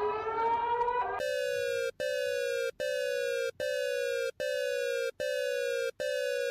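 Electronic emergency alert alarm tone. It rises in pitch for about a second, then repeats a buzzy tone that drops slightly in pitch, roughly once every 0.8 seconds with short breaks between.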